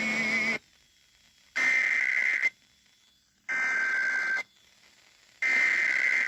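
Emergency Alert System SAME header data bursts: harsh two-tone digital data, each burst about a second long, repeating about every two seconds. A burst ends about half a second in and three more follow.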